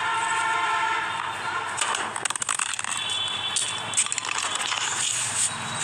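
Crackling, rubbing handling noise on a tablet's microphone as it is gripped and moved, with a sharp knock about four seconds in. A steady pitched tone, like a distant horn, sounds for about the first second.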